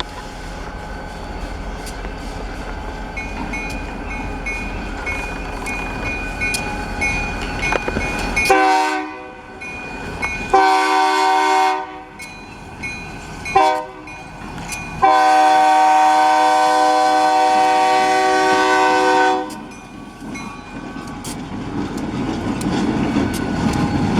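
EMD SD40 diesel locomotive approaching with its engine growing louder, then sounding its multi-chime air horn in four blasts, long, long, short and a long final one held about four seconds: the standard grade-crossing signal. Near the end the low rumble of the locomotive and its cars rises again as it closes in.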